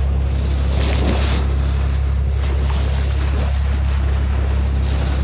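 Steady low drone of a Nordhavn 62 trawler yacht's diesel engine under way, over the rush of water along the hull and wind on the microphone, with a louder rush of water and wind about a second in.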